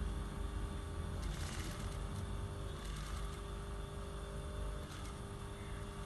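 Industrial sewing machine running on a garment factory floor: a steady machine hum with fixed tones and a low rumble, with a few brief clicks.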